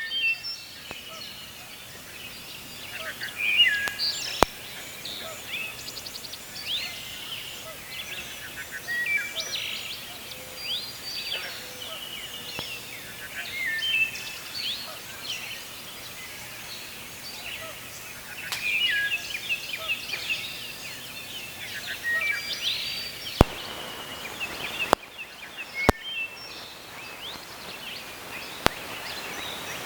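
Wild birds singing and calling over a steady background hiss: many short chirps and quick rising and falling notes, with several sharp clicks after about twenty seconds.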